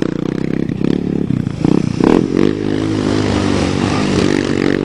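ATV (quad) engine revving hard in uneven bursts as it spins donuts in the mud, then settling into a steadier, slightly rising run.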